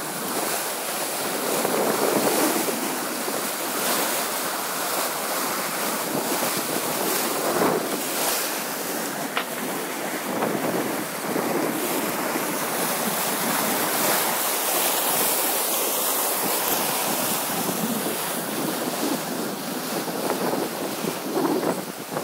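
Sea rushing and splashing along the hull of a sailing yacht as it drives through waves under sail, with wind buffeting the microphone. The water noise comes in surges as waves break against the side.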